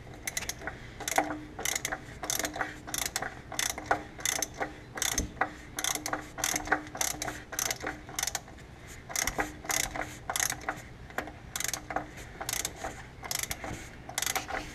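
Socket ratchet clicking in quick runs as it is swung back and forth, tightening the cap of a cartridge-type oil filter housing.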